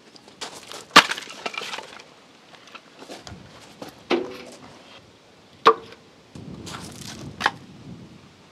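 Split firewood logs knocking and clattering as they are handled and stacked into the steel firebox of a wood-fired barbecue smoker. Several sharp knocks, the loudest about a second in, with rattling wood-on-wood clatter between them.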